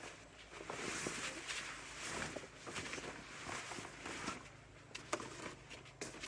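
Large vinyl inflatable sheet being lifted and shaken out, the plastic rustling in a run of noisy swishes, followed by a few short sharp taps near the end.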